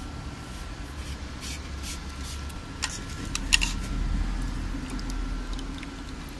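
A hand moving in a bucket of water around a submerged plastic pipe fitting: a few sharp clicks and knocks about three seconds in, then water sloshing for a couple of seconds, over a steady low hum.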